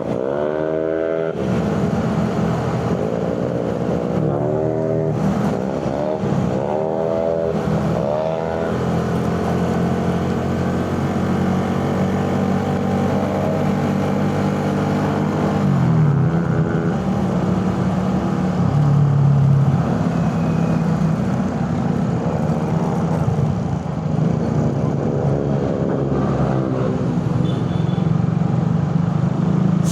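A Suzuki Raider 150's carburetted single-cylinder four-stroke engine, heard from the moving motorcycle. It revs up with a rising pitch three or four times in quick succession in the first eight seconds as it shifts up through the gears, then runs steadily. Around halfway through the pitch drops as it eases off.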